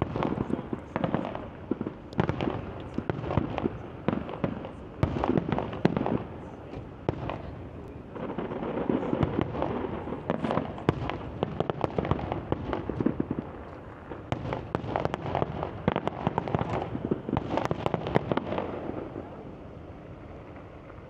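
Firework display: a dense, rapid run of bangs and crackling that thins out and fades about two seconds before the end.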